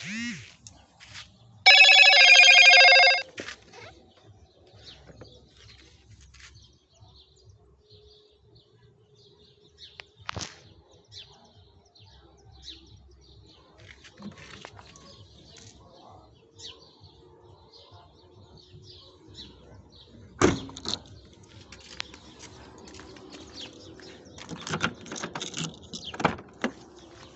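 Tailgate and parcel shelf of a 1997 Fiat Palio hatchback being handled: scattered clicks and rattles, and a sharp thump about twenty seconds in as the tailgate is shut. Near the start a loud high tone lasts about a second and a half.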